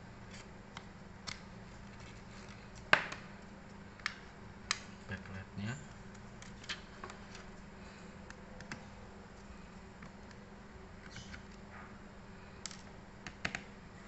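Scattered sharp plastic clicks and taps as a Dell Latitude E7250 laptop keyboard is pried out and its ribbon and backlight connectors are released; the loudest click comes about three seconds in, with a quick run of clicks near the end, over a steady low hum.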